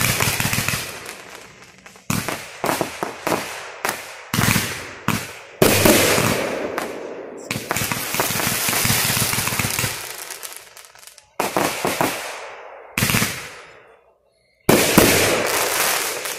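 A backyard fireworks finale of consumer cakes and aerial shells going off. First comes a quick series of booms, then a few seconds of near-continuous rapid bangs and crackle. More booms follow, and after a brief lull one last loud burst fades out near the end.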